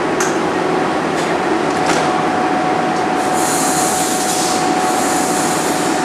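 Train's sliding passenger doors closing: a few light clicks in the first two seconds, then a high hiss of about two and a half seconds, briefly interrupted, as the doors shut. A steady hum from the standing train runs underneath.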